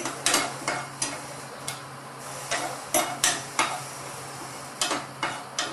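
Metal spoon knocking and scraping against a nonstick kadai in about a dozen irregular sharp clinks, over a faint sizzle of cumin seeds tempering in hot oil.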